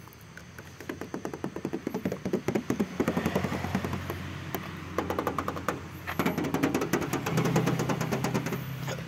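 Knuckles knocking rapidly and repeatedly on the steel door and body panels of a 1995 Daihatsu Feroza, in quick runs with short pauses about two and six seconds in. This is a check for body filler under the paint.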